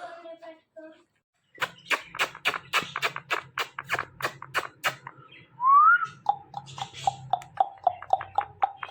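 Pet parrot vocalising: a series of sharp clicks, about three to four a second, then a short rising whistle, then a quick run of pulsed notes held at one pitch.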